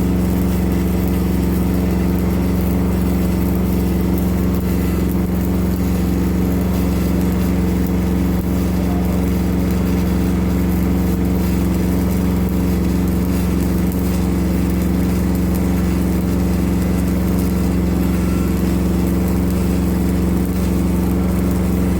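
Shindaiwa 300-amp engine-driven welding generator running at a steady, constant speed, a continuous even engine drone.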